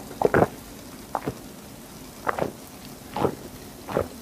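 A person gulping soda from a glass: loud close swallows about once a second, two in quick succession near the start, over a faint steady fizzing hiss.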